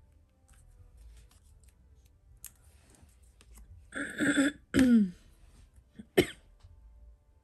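A woman clears her throat about four seconds in: a rasping burst, then a short grunt falling in pitch, and a brief sharp cough a little over a second later. Before this there are only faint small clicks of paper and tool handling.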